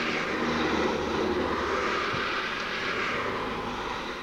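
A passing vehicle: a swell of engine rumble and rushing noise that builds, holds for a couple of seconds and fades away.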